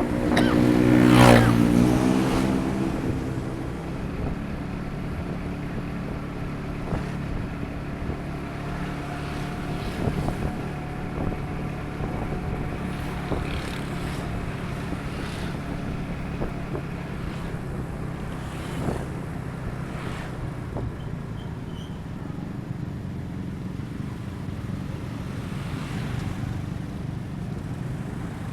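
Vehicle on the move at steady speed: its engine's low drone and road noise run on evenly. A short loud sound comes about a second in, and a few faint knocks later.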